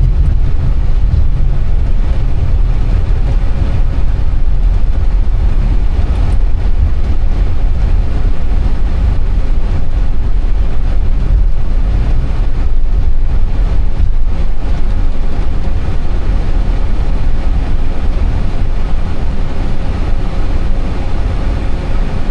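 Steady, loud rumble inside an Airbus A320 cockpit as the airliner rolls on the ground after landing, the noise strongest in the deep bass.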